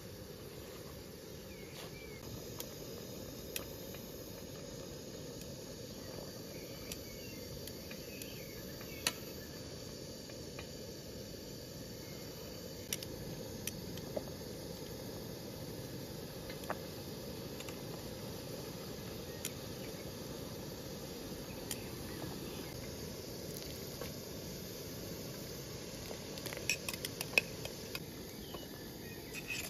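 Metal tongs clicking now and then against an aluminium pot, with a quick run of clinks near the end as blanched grape leaves are lifted into a glass jar. Behind them are a steady low rushing noise and faint insect chirping.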